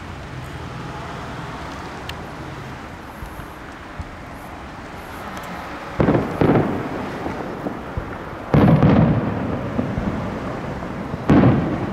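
Aerial firework shells bursting: three loud booms about two and a half seconds apart, each trailing off in a rumble, over a steady low background noise.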